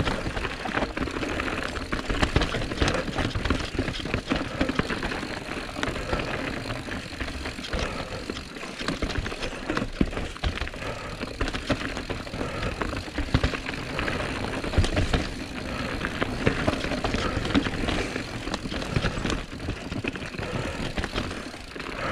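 Calibre Sentry full-suspension mountain bike being ridden over rough dirt singletrack: steady tyre noise on the trail with frequent knocks and rattles from the bike as it crosses roots and bumps.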